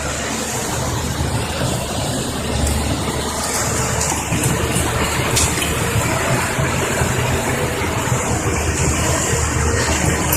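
Caterpillar 320D tracked excavator's diesel engine running steadily.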